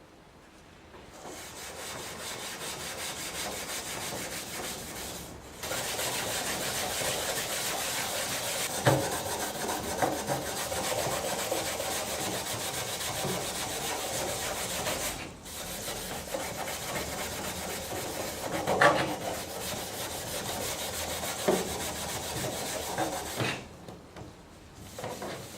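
Abrasive scouring sponge scrubbing stained plastic with cleaning product, a steady rasping rub that lifts out absorbed dirt. It pauses briefly twice and has a few louder scrapes.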